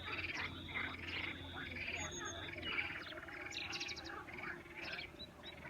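Several birds chirping and calling over one another, with short repeated calls and rapid trills throughout.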